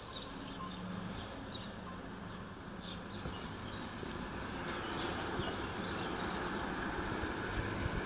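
Outdoor ambience: scattered short bird chirps over a steady rushing background noise, which grows louder from about halfway through.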